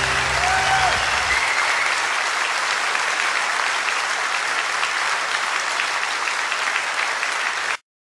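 Audience applause on a live recording. The song's final chord dies away over the first second and a half, then steady clapping carries on and cuts off abruptly just before the end.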